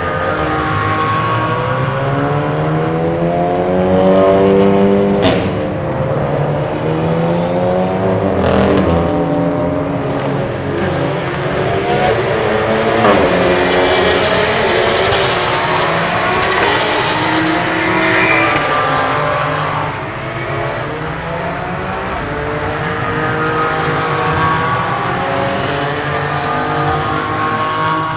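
Race car engines at high revs passing one after another, their pitch rising as they accelerate and breaking at gear changes, with a sharp crack about five seconds in.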